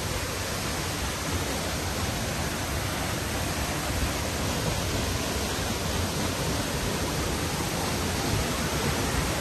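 Awosting Falls, a waterfall of about 60 feet, rushing steadily as it pours into the pool below.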